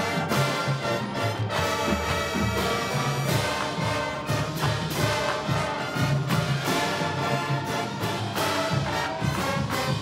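Marching band playing a brass-led passage: flutes, mellophones and trumpets hold full chords with repeated accented hits, while sousaphones move underneath in low notes.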